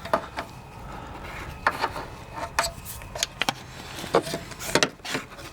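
Scattered light knocks and rubbing as hands and a flashlight work in the cramped space behind a car's headlight assembly.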